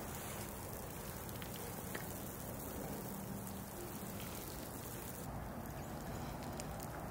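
Pot of ash reshteh broth simmering with a steady hiss of small bubbles as reshteh noodles are stirred in with a wooden spoon, with a few faint ticks. About five seconds in, the hiss changes to a different steady background.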